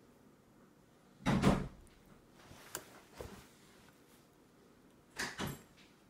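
Household knocks: a loud bang about a second in, a few light clicks, then a quick double knock near the end, like a drawer or cupboard being shut.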